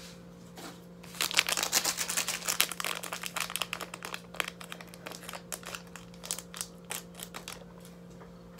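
Small plastic ramen seasoning sachet crinkling and rustling as it is handled, densest from about one to five seconds in, then a few scattered crinkles, over a low steady hum.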